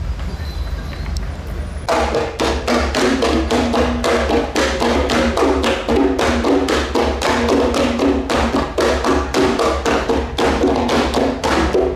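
Live Iban drumming: a fast, even beat of about five strikes a second that starts about two seconds in, with ringing pitched notes sounding under the strikes.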